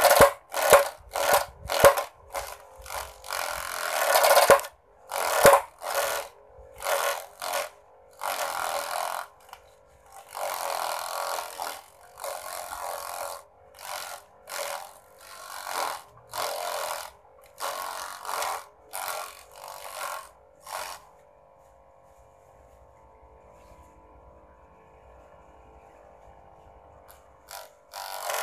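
Homemade mini grass chopper driven by a small DC motor salvaged from a toy car, its blades chopping grass leaves in quick, repeated bursts as they are fed in. About 21 seconds in the chopping stops and the motor runs free with a faint steady whine; chopping starts again near the end.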